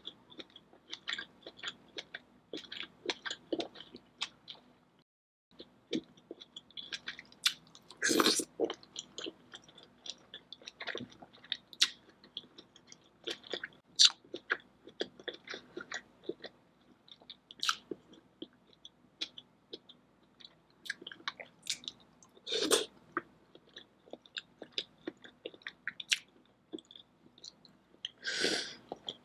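A person eating a spicy seafood boil close to the microphone: wet chewing with many quick mouth clicks and lip smacks. Three longer, louder wet sounds come about 8 and 23 seconds in and near the end, and the sound drops out briefly about five seconds in.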